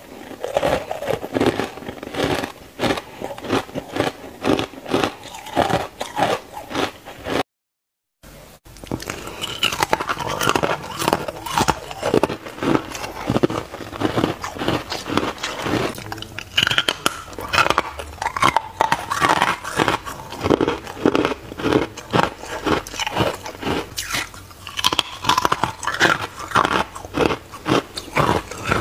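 Close-miked crunching of ice being bitten and chewed, many quick irregular crunches a second. First green, matcha-coloured powdery ice is chewed; after a brief total dropout about a quarter of the way in, pieces of pink molded ice are bitten and crunched.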